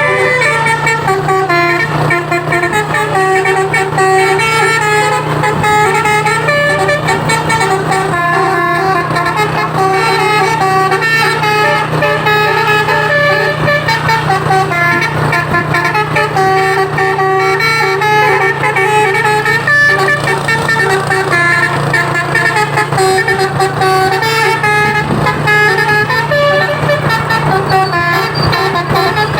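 A truck's Basuri telolet musical air horn playing a tune, its notes stepping up and down without a break, over a steady low hum.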